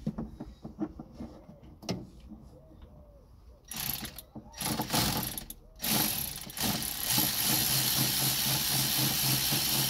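Ratchet on an extension and swivel undoing a radiator fan screw. There are a few light clicks at first, then from about four seconds in bursts of fast ratchet clicking that settle into a steady run near the end.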